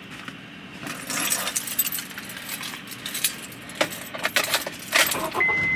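Keys jingling and clinking as they are handled, in many quick irregular chinks, with a short steady high beep near the end.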